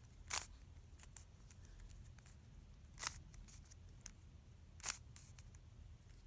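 Plastic Rubik's cube layers being turned by hand: three short, sharp clicks about one to two seconds apart, with fainter ticks between.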